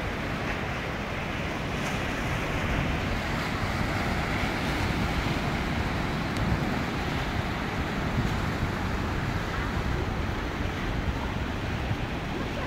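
Sea surf breaking and washing over rocks and sand in rough weather, a steady rush, with wind rumbling on the microphone.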